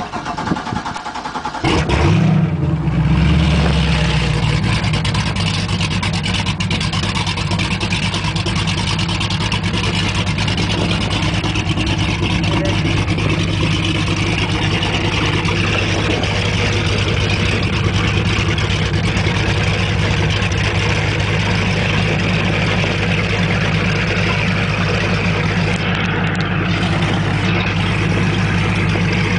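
Checkmate ZT240 speedboat's 496 big-block V8 inboard engine (450 hp) cranking, catching about two seconds in with a quick blip of revs, then settling into a steady, loud idle.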